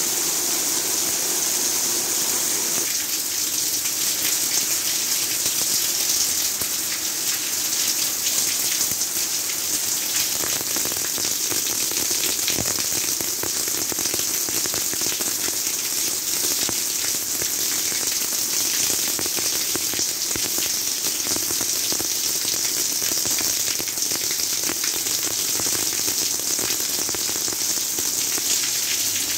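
Heavy rain falling steadily on bare ground, a dense even hiss of drops with fine patter.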